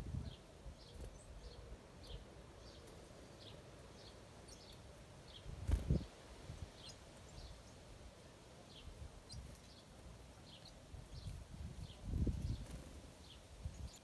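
Small birds chirping in a garden: short high calls scattered through, about one or two a second, over a faint steady outdoor hiss. A sharp knock comes about six seconds in, and a cluster of low knocks and rumbles about twelve seconds in.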